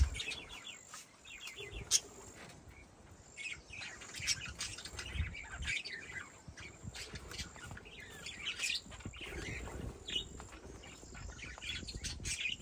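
Small parrots, budgerigars and cockatiels, chirping, with many short calls overlapping. One sharp knock about two seconds in.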